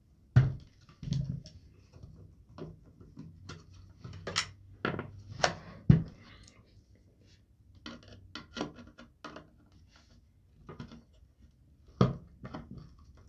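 Screwdriver and hands working on an air rifle's buttstock: irregular clicks, scrapes and knocks as screws are turned and the stock is handled, the sharpest knocks about half a second in, about six seconds in and near the end.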